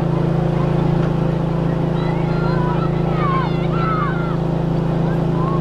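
A steady, unchanging low engine hum runs throughout. About halfway through, brief high gliding calls sound faintly over it.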